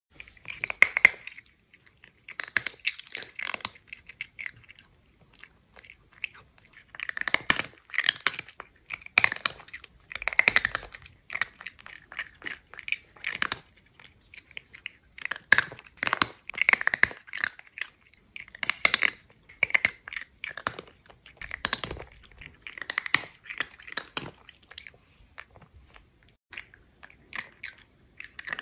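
A cat chewing crunchy food: runs of sharp, rapid crunches in clusters, with short pauses between them.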